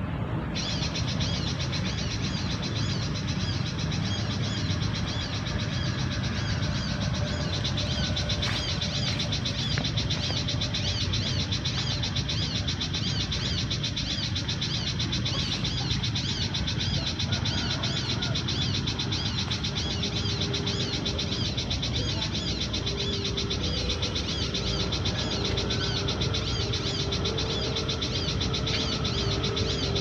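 Recorded bird-lure call played from a speaker to draw in a pied fantail: dense, continuous high chirping and twittering that switches on about half a second in and grows fuller about eight seconds in.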